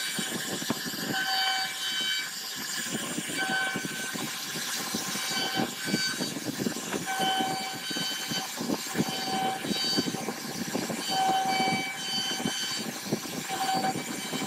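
CNC router carving grooves into a wooden door panel: the bit crackles and chatters through the wood, under a high machine whine at a fixed pitch that cuts in and out every second or so as the machine moves.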